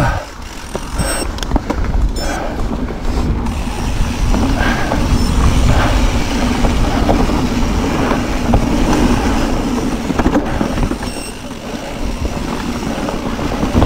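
E-mountain bike rolling over a dirt trail: a steady rumble of tyres on the ground under a low hum, with scattered knocks and rattles from the bike over rough ground.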